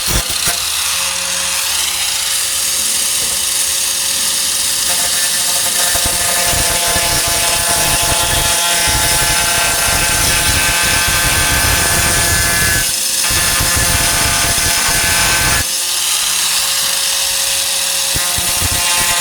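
A 4-1/2 in. electric angle grinder with a grinding disc runs at speed and grinds the steel of a truck tailgate down to clean bare metal. The motor whine stays steady, and the coarser grinding noise of the disc on the metal drops out briefly about two-thirds of the way through and again near the end, leaving the tool spinning free.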